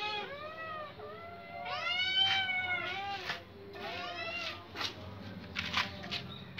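Cat meowing again and again in long calls that rise and fall in pitch, with shorter calls in the last couple of seconds.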